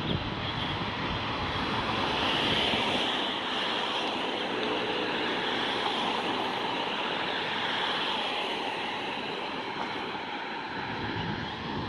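Road traffic noise, a steady rush that swells about two to three seconds in and then slowly eases off.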